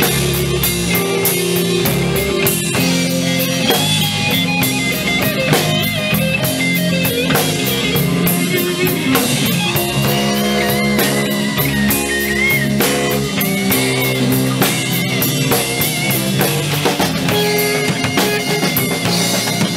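Live blues band playing a minor-key blues instrumental break: a Stratocaster-style electric guitar takes a solo with bent notes over a full drum kit and the rest of the band.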